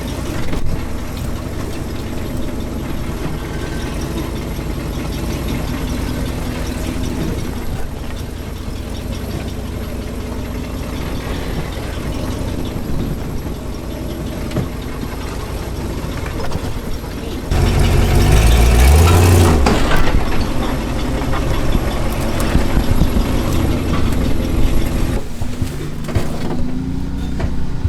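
Off-road vehicle engine, likely the Jeep CJ5's, running steadily at idle. About two-thirds of the way in it gets much louder and rumbling for a couple of seconds. Near the end a rising tone comes in.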